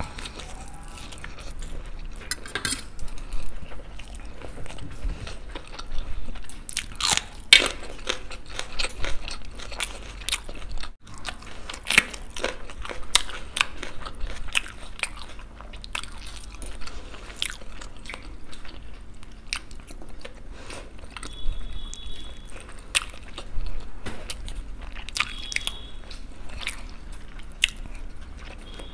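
Close-miked eating: irregular crunchy bites of fried cauliflower pakoras and wet chewing of masala noodles, with now and then a brief ringing scrape of a fork on a steel plate.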